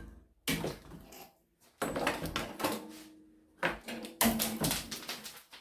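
Kitchen sink being worked loose and pulled out of the countertop: a run of sharp knocks and clunks, about four main hits, each followed by scraping and rattling.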